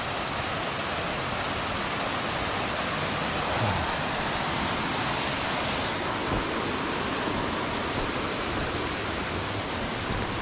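Steady rush of a creek running high with snowmelt.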